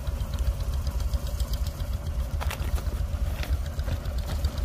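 Ford 4600 tractor's three-cylinder diesel engine idling steadily, with a couple of light knocks partway through.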